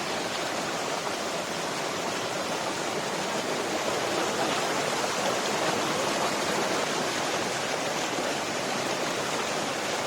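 Water rushing steadily through a small hillside irrigation channel that feeds paddy fields, an even, unbroken flow with no change in strength.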